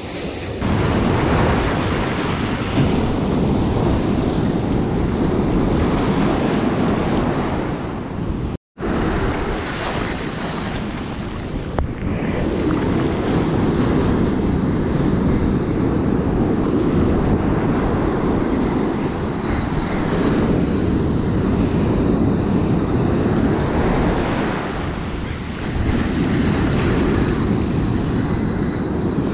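Ocean surf breaking and washing up the beach, with wind rumbling on the microphone; the noise swells and eases every few seconds as waves come in. A split-second gap of silence about nine seconds in.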